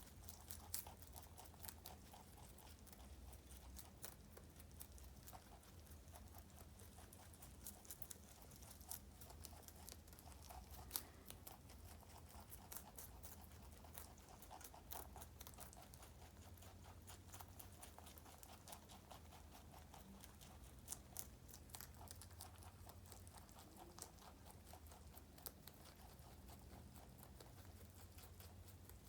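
Two rabbits chewing romaine lettuce: a faint, dense run of small crisp crunches and clicks over a steady low hum.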